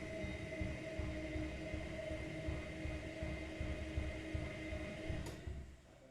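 Myria MY1506 washing machine running a Cotton 90°C drum-clean cycle: a steady motor whine over low, uneven rumbling from the drum. About five seconds in there is a click, and then the sound dies away.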